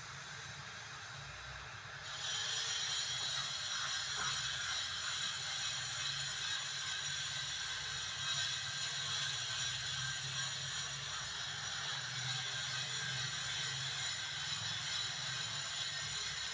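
A geared mechanism running steadily, starting about two seconds in.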